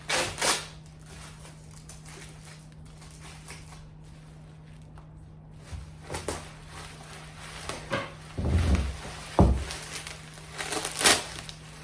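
Cardboard shipping box and its packing being handled and opened: scattered scrapes and clicks, with two heavy thumps a little past the middle.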